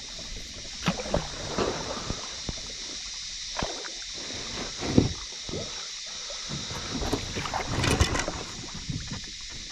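Kayak paddling: a paddle dipping into the water and knocking against a plastic sit-on-top kayak, making scattered splashes and knocks over a steady high background hiss. The loudest knock comes about halfway through, and a busier run of splashes and knocks comes near the end.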